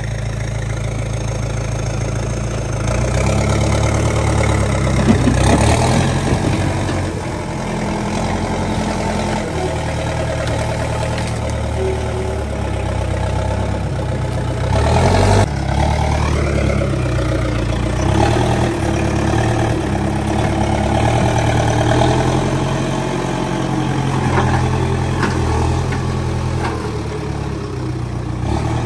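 Backhoe loader's diesel engine running and revving up and down as the machine works, with two loud cracks or knocks, about five seconds in and again near the middle.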